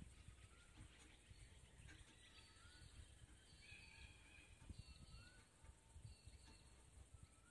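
Near silence: faint outdoor background with distant birds calling, short rising chirps several times.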